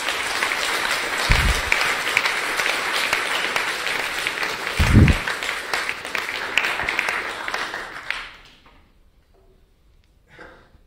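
Audience applauding at the end of a talk. The clapping dies away about eight or nine seconds in. Two dull low thumps come through it, about a second and five seconds in.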